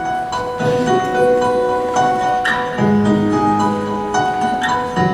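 Instrumental music: a keyboard instrument playing a melody over held chords, a new note or chord about every half second.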